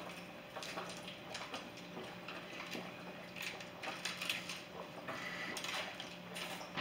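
Two people chugging water from plastic bottles: faint gulping with small scattered clicks and crackles of the bottles.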